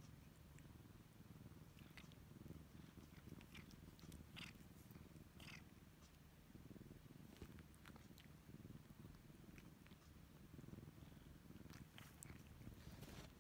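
Faint domestic cat purring, a low steady rumble, with scattered soft clicks and rasps of a tongue licking fur.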